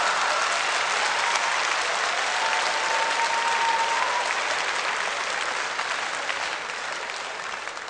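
Studio audience applauding after a joke, a dense steady clapping that eases off slightly toward the end.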